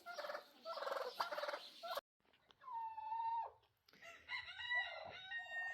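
Turkeys squabbling: about two seconds of buzzy, rapidly pulsing calls, then after an abrupt break a single clear whistled call, followed by several high, overlapping chirps.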